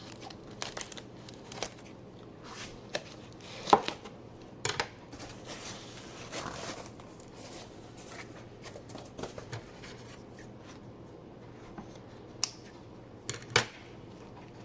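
Plastic and paper shipping wrap on a mail-order plant being rustled and torn open, with scattered clicks and a few sharp knocks, the loudest about four seconds in and near the end.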